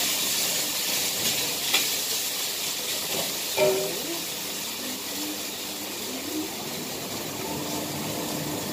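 Beef sizzling in hot oil and garlic in a wok, a steady hiss, with a couple of knocks of the spatula against the pan.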